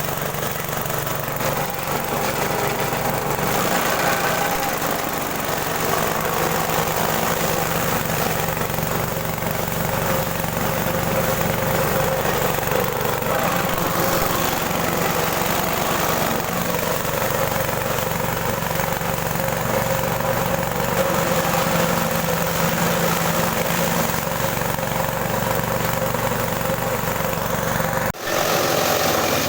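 Small engine driving a multifunction forage chopper and hammer mill, running steadily, with a brief break shortly before the end.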